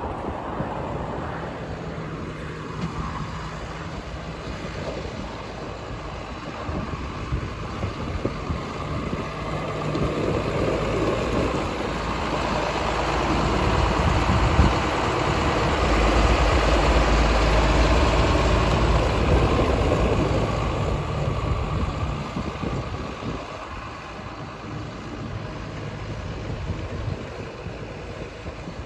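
John Deere 6830 tractor's six-cylinder diesel engine running as the tractor drives about. It grows louder as the tractor passes close, about halfway through, and fades as it pulls away.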